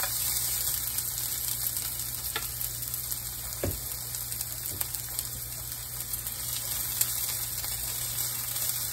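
Diced white onions frying in a thin coat of olive oil in a cast-iron skillet over medium-high heat: a steady sizzle, with a few light knocks, the clearest about halfway through.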